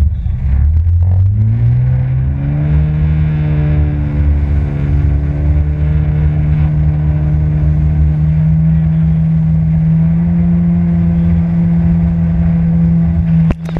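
Jet ski engine speeding up over the first two seconds or so, then running steadily at speed, rising a little about ten seconds in, and dropping off sharply near the end.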